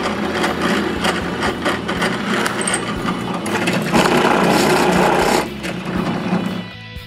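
A power tool cutting wood, running steadily and stopping near the end. It gets louder for a second or so just past the middle.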